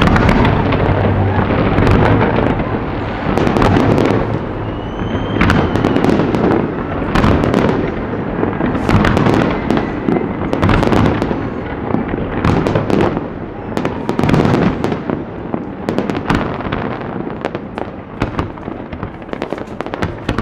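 Aerial fireworks display: a rapid, continuous barrage of shell bursts and crackle, with a short whistle about five seconds in and the volleys thinning a little near the end.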